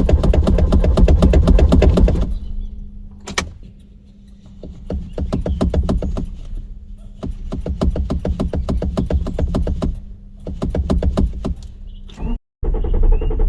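A car's starter motor cranking the engine over in several tries with short pauses, the engine failing to catch: a no-start. The first two seconds are louder and denser. About a second before the end the sound cuts out and music begins.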